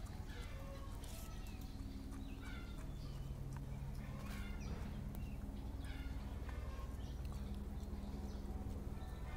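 A dog eating cooked rice from a metal bowl: repeated chewing and smacking sounds, with a steady low hum underneath.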